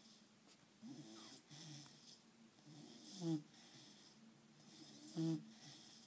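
A sleeping dog snoring: soft breaths at first, then two louder snores about two seconds apart, one about halfway through and one near the end.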